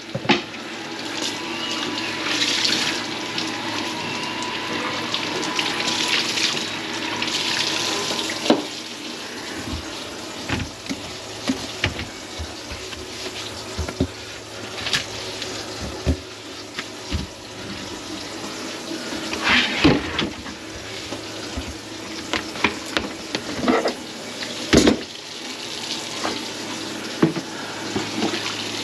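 Kitchen faucet running steadily into a stainless steel sink, with scattered knocks and clatter from about nine seconds in.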